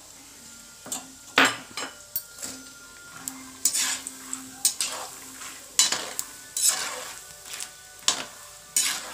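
Peanuts frying in shallow oil in a metal kadai with a faint sizzle, while a metal spoon stirs and scrapes them around the pan in irregular strokes, roughly one a second.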